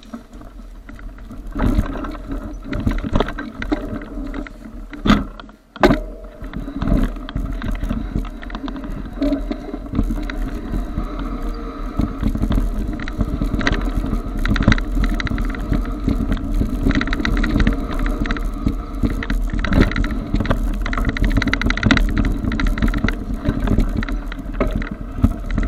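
Mountain bike riding along a dirt forest singletrack: tyres rolling over packed dirt and dry leaves while the bike rattles and clatters over bumps, under a steady low rumble. There are sharp knocks about two, five and six seconds in.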